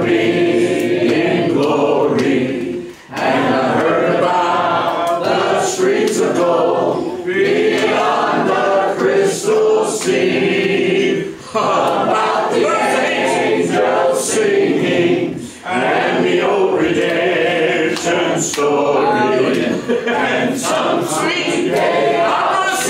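Congregation singing a hymn together without instruments, a mass of voices in phrases with brief pauses between them.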